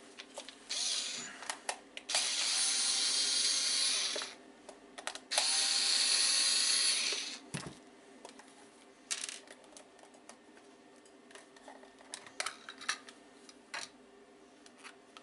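Small electric screwdriver running in two bursts of about two seconds each, undoing the case screws of an Amiga tank mouse, with scattered clicks and knocks of plastic being handled around them.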